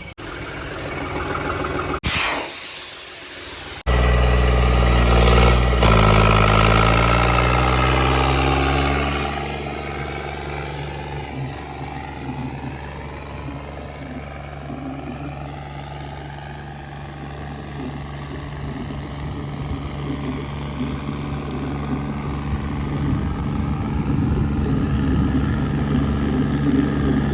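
Tractor diesel engine revving, then running steadily and growing louder toward the end. Its exhaust is a bare header with no pipe fitted. A loud hiss runs for about two seconds near the start, before the engine takes over.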